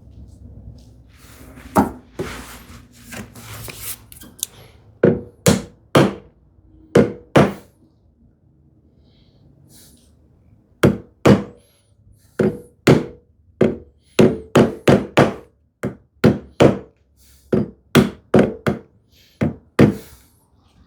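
A small glued wooden filler piece being knocked down into a tambour groove: a series of sharp wooden knocks, a few spaced ones, a short pause, then a quicker run of taps. The piece is a tight fit, driven home without needing a clamp.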